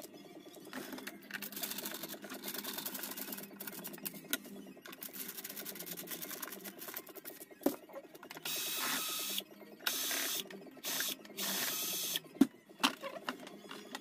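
Cordless drill-driver spinning in four short bursts about two-thirds of the way through, backing the screws out of an espresso machine's metal casing. Softer scraping and clicking of tool handling come before, and sharp clicks and knocks after.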